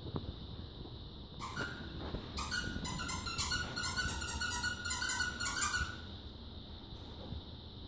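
Rubber squeaky dog toy squeezed by hand: a couple of squeaks, then a fast run of squeaks, several a second, that stops about six seconds in.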